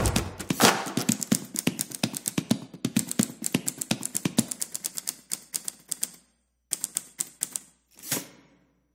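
A fast run of sharp taps, several a second, that thins out and fades over about six seconds, followed by a few scattered taps and one last tap near the end.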